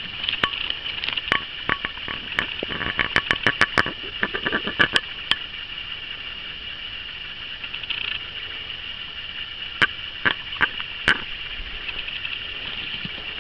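Stones clicking and clattering on a gravel bar as rocks are handled and stepped on: a quick run of sharp clicks in the first five seconds, a few more about ten seconds in, over a steady high-pitched buzz.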